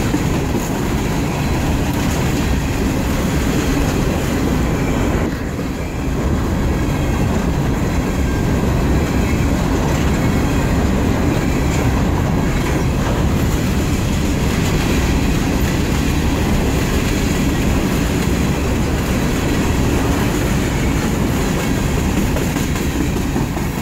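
Empty coal hopper cars of a freight train rolling past: a loud, steady rumble of steel wheels on the rails, dipping briefly about five seconds in.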